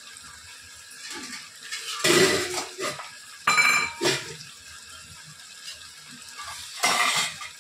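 A spoon stirring chicken in masala in a cooking pot, scraping and clattering against the pot in short bursts over a faint steady sizzle as the chicken fries.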